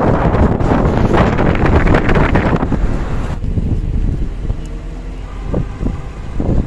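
Wind buffeting the microphone through an open window of a moving car, with the car's road rumble underneath. About three and a half seconds in it cuts off abruptly to a much quieter, steady outdoor background.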